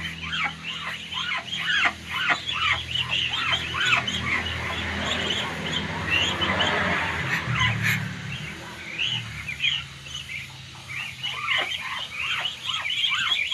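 A brood of three-week-old Muscovy ducklings peeping continuously, with many short, high chirps overlapping, over a steady low hum.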